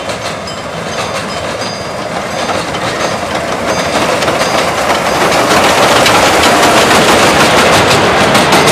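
Miniature passenger train rolling past on an elevated track, getting louder as it approaches. In the second half the cars' wheels click rapidly over the rail joints.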